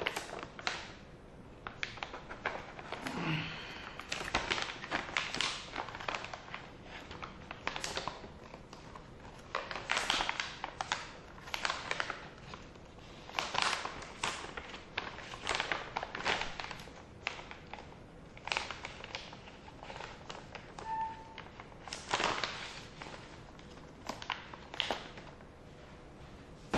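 Plastic stand-up pouch being handled: irregular crinkling and rustling with scattered small taps and crackles.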